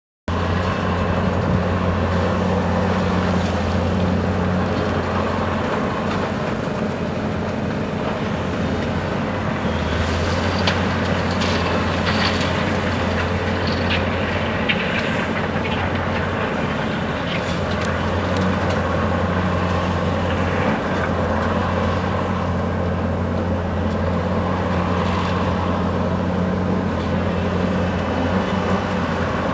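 Heavy diesel engine of a Hyundai R520LC-9A excavator running steadily under load, with a cluster of sharp clanks and rattles about ten to eighteen seconds in.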